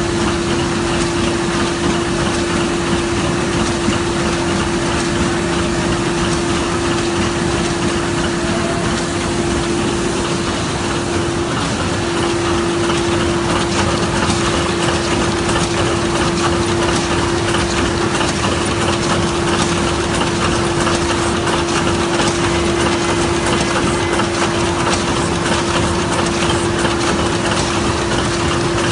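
Smyth Freccia 150 L book-sewing machine running: a steady, fast mechanical clatter over a constant hum.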